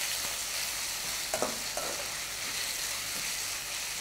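Onion, chilli and tomato masala sizzling in oil in a stainless steel wok, stirred with a metal ladle. The ladle clinks against the pan twice about a second and a half in.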